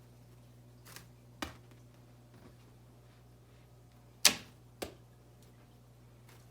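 Four short, sharp knocks, the loudest a little past four seconds in, over a faint steady low hum.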